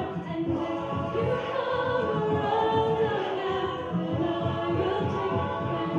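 A cappella vocal group singing in harmony, several voices holding and shifting chords with no instruments.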